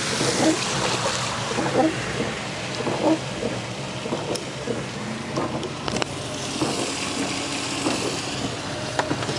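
Car driving on a wet road in heavy rain: a steady hiss of rain and wet tyres, with a few sharp taps.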